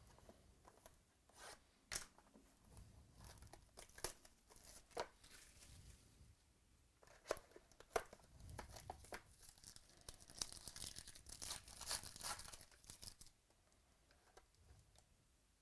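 Faint tearing and crinkling of trading-card packaging, with scattered clicks as cards and packs are handled. The crinkling is densest between about ten and thirteen seconds in, then stops.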